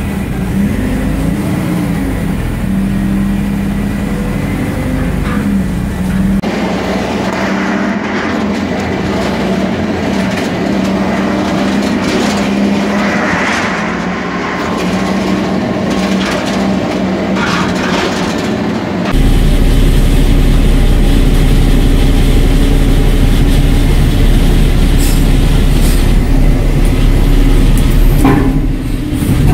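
Yard tractor's diesel engine running while driving, heard from inside the cab, with knocks and rattles from the empty trailer. After a cut about two-thirds in, a louder, deeper engine sound from another cab.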